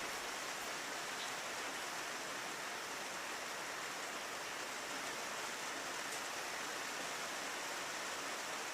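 Rain falling steadily on a window: an even hiss with an occasional faint tick of a single drop.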